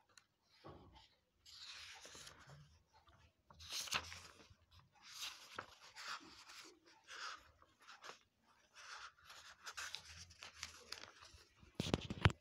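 Faint irregular rustling and scraping noises with scattered clicks, and a louder cluster of sharp clicks or knocks near the end.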